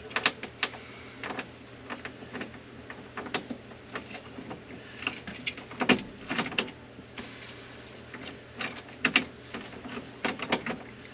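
Scattered small metallic clicks and rattles as the ignition lock cylinder and key are worked into a newly fitted ignition switch.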